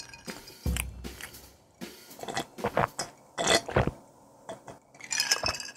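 Close-miked mouth sounds of eating and drinking: sips and swallows from a glass and chewing, a series of short, separate wet noises picked up by a lapel microphone.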